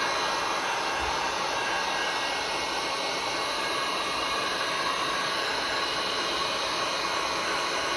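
Electric heat gun blowing a steady hiss of hot air, held over freshly poured epoxy resin to warm its surface.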